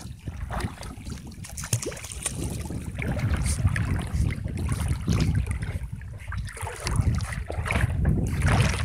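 Wind buffeting the microphone, with water sloshing and splashing irregularly as people wade through shallow water beside mesh fish nets.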